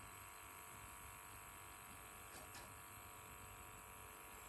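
Near silence: a faint steady background hum, with a couple of faint ticks about halfway through.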